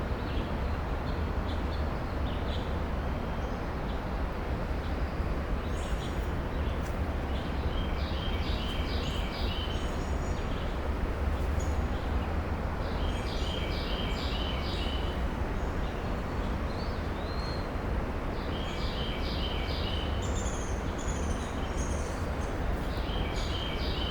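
A small bird singing a short phrase of quick high notes, four times about five seconds apart, over a steady low outdoor rumble.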